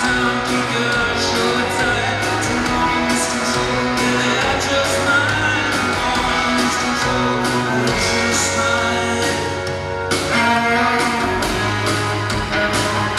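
Live rock band playing at full volume: electric guitars over bass guitar and drums with cymbals, the sound reverberant as heard from the audience in a concert hall. There is a short drop in loudness near the end before the full band hits again.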